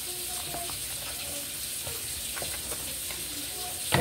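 A pot of ogbono soup simmering with a steady sizzle while a metal spoon stirs it, scraping lightly against the steel pot; right at the end the spoon knocks against the pot once.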